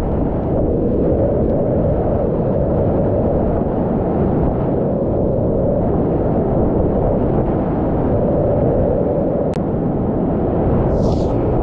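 Whitewater rapids rushing loudly and steadily around a kayak plunging through them, with a short higher-pitched hiss near the end.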